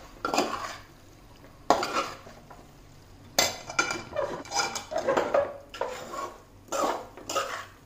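Spatula scraping and knocking against a metal cooking pot as thick, sauce-coated Manchurian balls and vegetables are gently tossed, in a series of irregular strokes roughly one to two a second.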